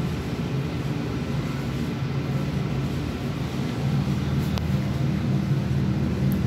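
Steady low mechanical drone, with a single faint click about four and a half seconds in.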